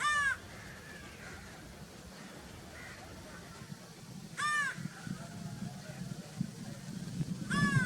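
Crow cawing: three short, harsh caws, each rising then falling in pitch, the first right at the start, the second about four and a half seconds in and the third near the end, over a faint low rumble.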